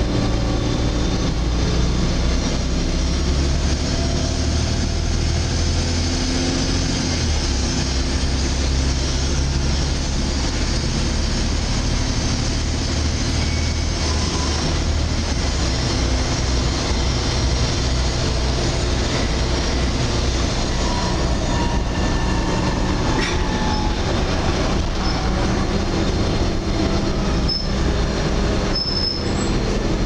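Interior ride noise of a Volvo B7TL double-decker bus under way: the six-cylinder diesel engine drones low, its pitch stepping up and down several times as the bus changes gear and speed, over steady road noise. A few faint high squeaks come near the end.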